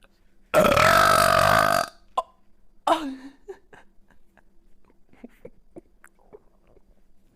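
A woman burps once, long and loud, holding a steady pitch for about a second and a half. A brief, softer vocal sound falling in pitch follows, then faint mouth clicks.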